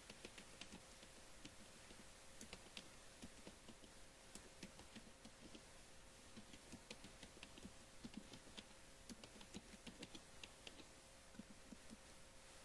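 Faint typing on a computer keyboard: irregular key clicks, over a faint steady hum.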